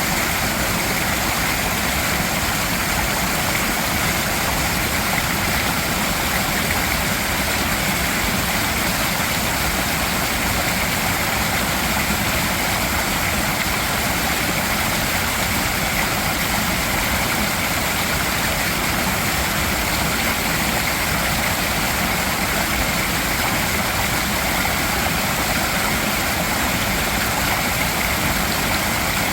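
Mountain valley stream rushing over rocks, a steady, unbroken rush of water.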